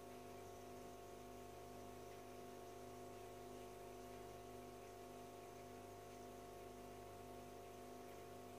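Near silence, with a faint steady hum and light hiss from the running aquarium filter.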